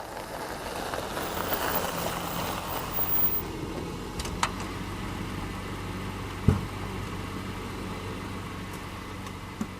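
Car engine idling steadily. A short click comes about four and a half seconds in, and a loud thump about six and a half seconds in.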